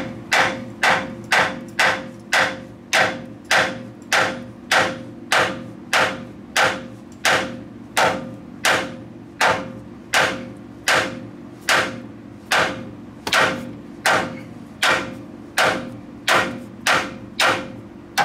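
Steady hammer blows on steel, about two a second, each with a short metallic ring. The hammer is shocking a tightened puller and the seized pitman arm on the steering gear's shaft to break the arm free; it has not yet popped loose.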